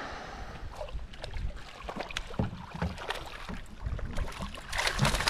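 Light scattered knocks and bumps of gear and movement in a small fishing boat, over a low steady wind rumble, with a brief louder rustle near the end.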